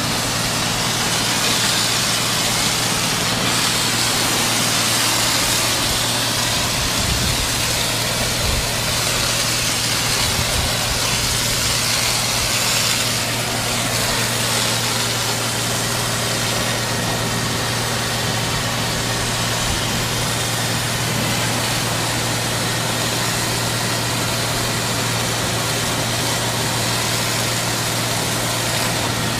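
ZM 50600 high-pressure washer running steadily: a constant low hum from its motor and pump with a broad hiss over it.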